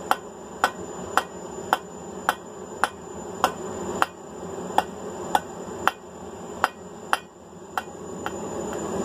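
Blacksmith's hand hammer striking hot 3/8-inch mild steel round bar in an even rhythm of about two blows a second, drawing the end out to a point. The last few blows are lighter, and the hammering stops shortly before the end.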